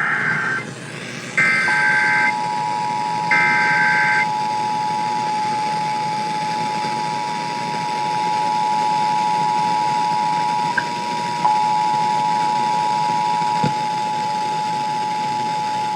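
Emergency Alert System SAME header: warbling data bursts about a second long, the last ending about 4 s in. About 1.5 s in, the steady two-tone EAS attention signal (853 and 960 Hz) starts and holds, opening a statewide Required Monthly Test.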